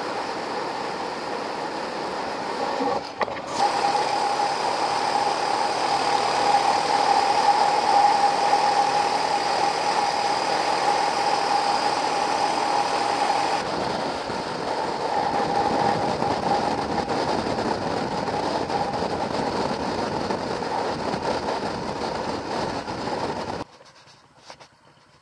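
Wind rush and road noise from a Suzuki DR650 motorcycle ridden at road speed, with the engine underneath. The sound changes abruptly about three seconds in and again about halfway, then drops to faint near the end.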